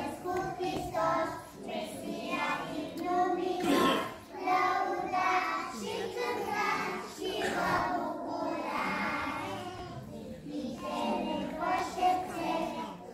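Young children singing.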